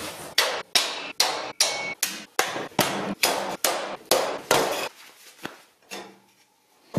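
Hammer striking metal in a steady run of about a dozen blows, roughly two and a half a second, stopping about five seconds in.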